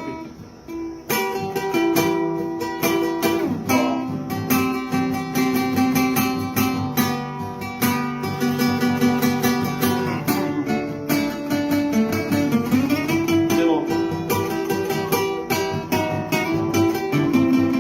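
Acoustic guitar (violão) strummed in chords, playing an instrumental introduction that starts about a second in.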